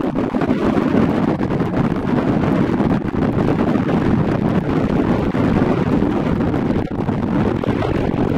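Wind buffeting the camera's microphone: a loud, steady rumble throughout.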